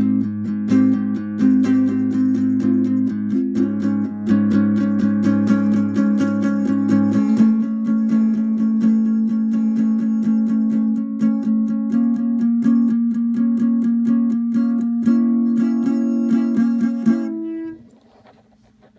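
Acoustic guitar strummed steadily in quick repeated strokes, stopping abruptly about a second and a half before the end.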